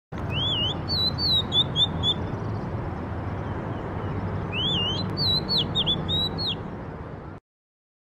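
Oriental magpie-robin singing: two phrases of varied, sliding whistled notes a couple of seconds apart, over a steady low background rumble. The sound cuts off suddenly near the end.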